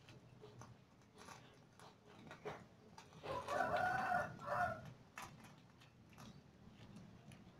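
A rooster crows once, about three seconds in: a single long call of about a second and a half, with a short break before its last part.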